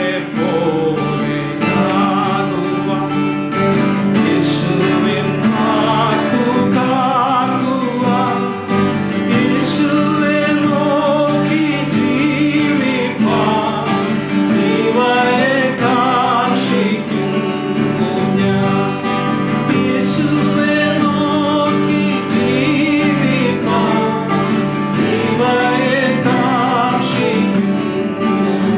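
Male and female voices singing a Malayalam Christian devotional song together, accompanied by acoustic guitars.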